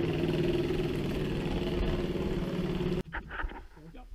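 A small engine running steadily at a constant pitch, which stops abruptly about three seconds in.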